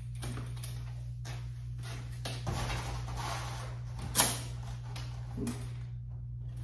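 Shuffling and handling noises as a man climbs onto a mountain bike, with one sharp knock about four seconds in, over a steady low hum.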